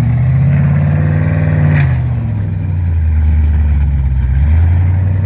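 LS-series V8 in an off-road buggy revving hard. The pitch is held high for about two seconds, drops back, then rises again near the end.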